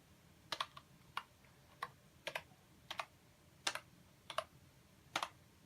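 Keys on a Logitech wireless keyboard, the spacebar among them, pressed one at a time: about a dozen separate clicks, some in quick pairs, roughly one or two a second.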